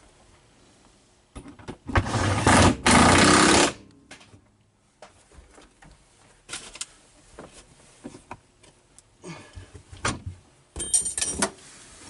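Ratchet wrench clicking in two quick runs, a loud one of about two seconds near the start and a shorter one near the end, with a few scattered taps of tools between: the bolt holding the seat-belt reel to the floor being tightened.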